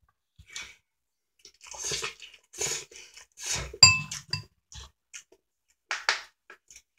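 A person eating noodles, with short slurping and chewing noises. A fork clinks against the bowl with a brief ring about four seconds in. Near the end a plastic water bottle crackles as its cap is twisted.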